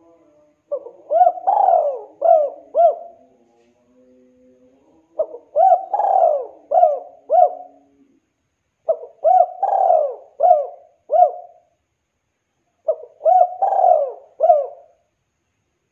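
Spotted dove cooing: four phrases of five or six short coos each, with one longer, louder coo near the middle of each phrase, and gaps of a second or two between phrases.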